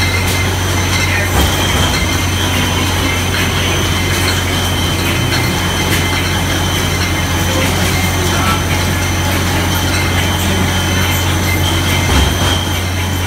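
Mobile wine bottling line running: a steady machine hum with a few thin high whines over it and scattered light clicks of bottles and mechanisms on the conveyor.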